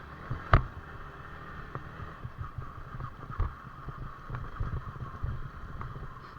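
Yamaha R15 V4 motorcycle running along a rough off-road track, its engine and ride noise steady, with scattered short knocks and thumps; the sharpest knock comes about half a second in.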